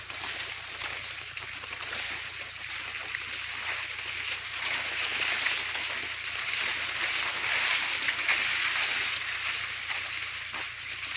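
Leaves of young maize plants rustling in the wind: a continuous hiss that swells a little about halfway through.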